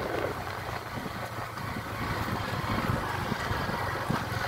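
Motorcycle engine running steadily at low speed, heard from on the bike, with wind rushing over the microphone.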